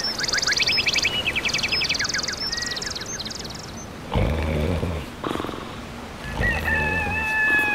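Cartoon birds chirping in quick trills, then a woman snoring: two long, rough snores, the second running into a whistling tone.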